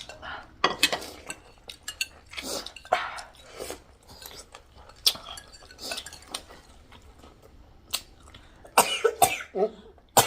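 Coughing and throat clearing brought on by eating very spicy food, over sharp clinks of spoons on bowls.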